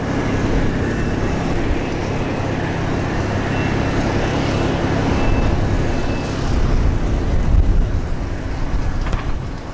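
Amtrak passenger train's GE Genesis P42DC diesel locomotives running as the train approaches on a curve: a steady low engine rumble that grows a little louder as it nears.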